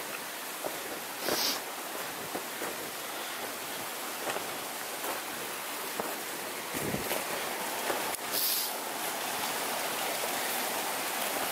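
Mountain brook rushing over rocks, a steady watery hiss that grows louder as it nears, with scattered crunching footsteps in snow and a couple of brief swishes.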